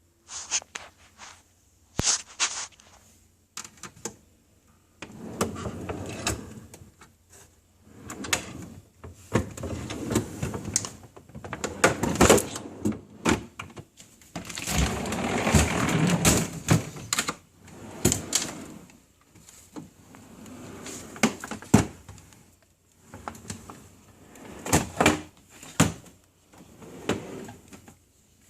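Irregular clicks, knocks and rustling of items being handled and moved about inside a refrigerator.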